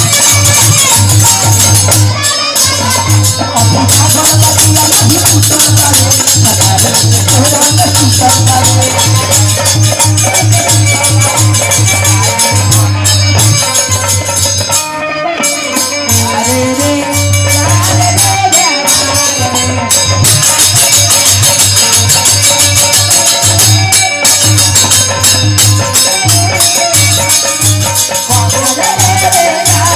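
Loud instrumental interlude of Bhojpuri dugola folk music without singing: a wavering melody over a steady, fast jingling and shaking percussion, with a constant low hum underneath. The music thins briefly about halfway through.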